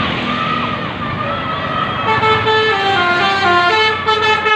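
Intercity bus telolet horn, a multi-trumpet air horn playing a quick tune of stepped notes that begins about two seconds in. Before that there is the rumble of passing traffic and a wavering whistle-like tone.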